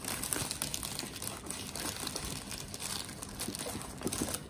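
Thin clear plastic packaging crinkling as it is pulled and crumpled off a new Wi-Fi router, a dense run of crackles.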